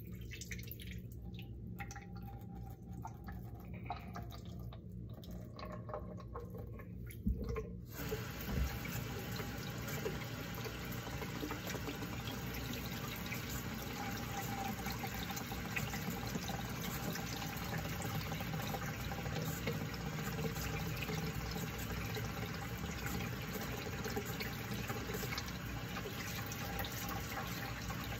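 A kitchen tap is turned on about eight seconds in and runs steadily into a stainless steel sink. Before that there are only a few faint knocks.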